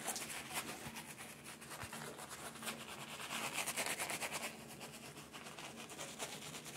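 Shaving brush whisking shaving cream into a lather on a stubbled face: a faint, rapid scratchy swishing of bristles against skin.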